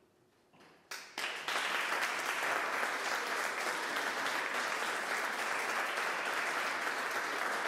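After a near-silent second, audience applause begins with a few scattered claps and within half a second swells into steady, dense clapping.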